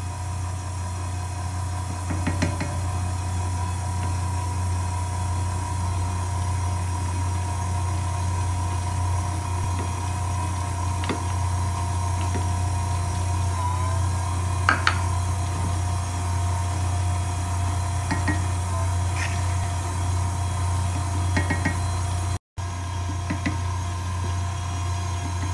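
Electric stand mixer motor running steadily, its flat beater churning thick cookie dough in a steel bowl: a constant low hum with a steady whine over it and a few light clicks. The sound cuts out for an instant about 22 seconds in.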